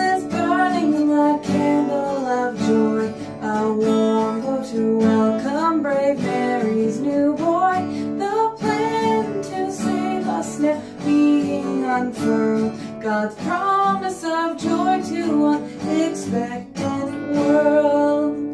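A woman singing an Advent hymn while strumming an acoustic guitar.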